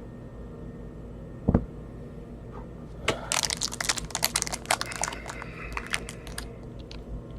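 A single thump about a second and a half in, then a few seconds of irregular crinkling and crackling from a foil trading-card pack wrapper being handled.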